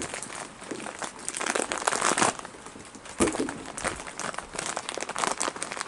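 Plastic hot-dog package crinkling and rustling in irregular bursts as hot dogs are pulled out of it to be thrown.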